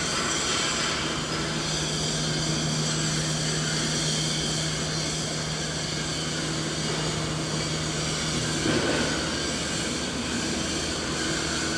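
Continuous mid-frequency machinery noise: a dense, steady rumble and hiss with a constant low hum running through it. There is a brief swell a little under nine seconds in.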